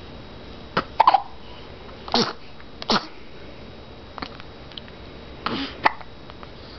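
Hiccups: about five short, sudden hiccups spread a second or so apart, with the loudest ones about a second in and near six seconds.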